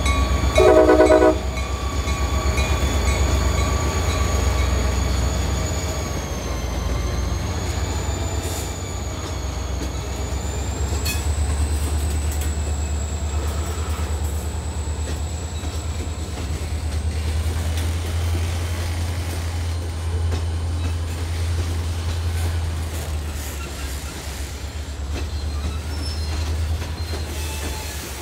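Freight train passing: a short horn blast about a second in, then the steady low rumble of the locomotive and rolling cars, with a thin high-pitched wheel squeal wavering over it.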